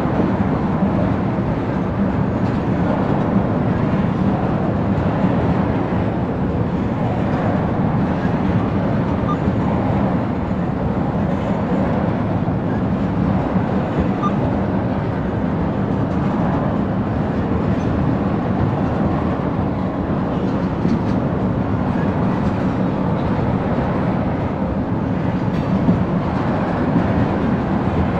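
Freight train tank cars rolling past: a steady, unbroken noise of steel wheels on rail with faint clicks.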